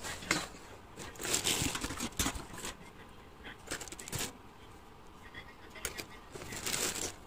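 Plastic wrapping and bubble wrap crinkling and rustling in irregular bursts as wrapped lampshades are handled and lifted from a cardboard box, with a few light knocks and clicks.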